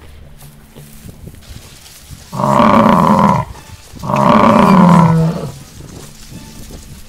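Two loud drawn-out calls from a large animal in a lion-and-buffalo fight, each a second or more long with a short gap between them, over low scuffling noise.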